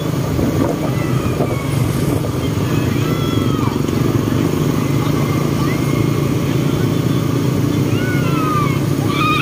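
Small motorcycles and scooters running steadily together in a riding group, heard from a moving motorcycle, with engine drone and road and wind noise that holds at an even level.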